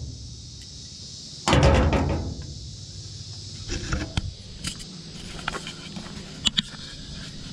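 Metal truck toolbox latch and lid being worked by hand: a loud clatter about a second and a half in, then scattered light clicks and knocks, with two sharp clicks near the end. The latch is stiff and needs lubrication, and the owner thinks a piece inside it is missing.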